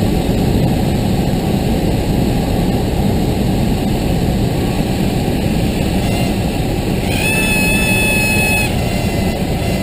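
Cessna 172 landing: steady engine and airflow noise as the plane crosses the runway threshold and rolls onto the runway. A steady high tone sounds about seven seconds in and lasts about a second and a half.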